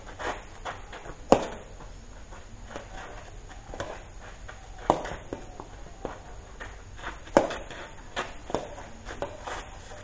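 Badminton rally: sharp cracks of racket strings hitting a shuttlecock, one every few seconds, with the players' shoes scuffing on a dirt court between the hits.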